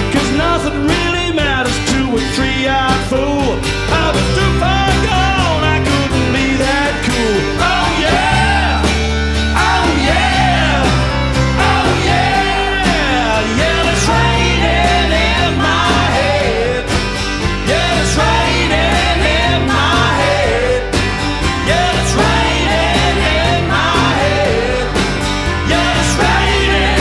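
Live band playing a country-rock song: strummed acoustic guitars, electric guitar, bass and drums, with singing over them.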